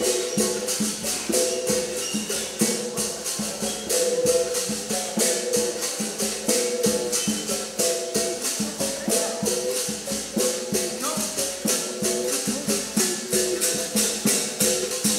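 Capoeira music: berimbau notes shifting between pitches over a quick, steady shaker rattle of about four strokes a second.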